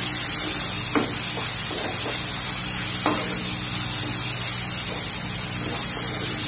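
Masala paste with red chilli powder sizzling in hot oil in a non-stick kadai while a spatula stirs and scrapes through it, with sharper scrapes about one and three seconds in. The masala is being fried until its raw smell goes and the oil separates.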